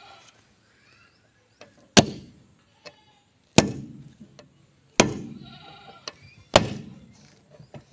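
A sledgehammer strikes a steel punch held against the front wheel hub of a John Deere tractor: four hard metallic blows about a second and a half apart, each ringing briefly. The blows are driving out the front wheel bearing. Goats bleat faintly between the blows.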